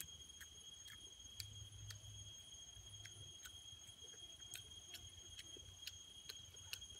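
Faint chewing of cooked pork, with soft irregular mouth clicks and smacks, over a steady high-pitched whine.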